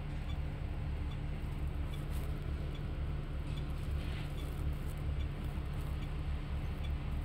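Bus engine running with a steady low hum, heard from inside the passenger cabin.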